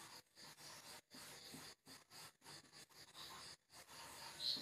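Faint marker strokes on a whiteboard, with a brief, slightly louder scrape near the end.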